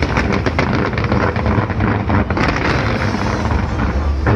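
Fireworks going off in a dense barrage: a continuous low rumble of bursts with many sharp cracks and crackles.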